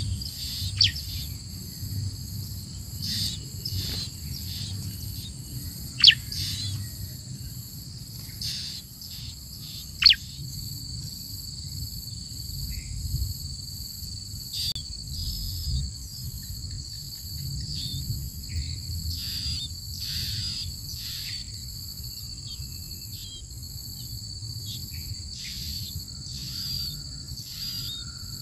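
Steady high-pitched insect drone with a pulsing edge, over which short, high bird chirps drop in pitch, scattered through and sharpest twice in the first half; a low rumble runs underneath.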